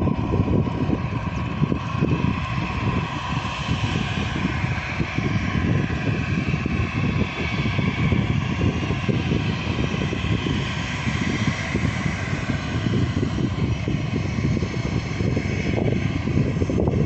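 Airbus A320-family jet airliner taxiing, its twin jet engines running at low taxi power with a steady whine, over a constant low rumble.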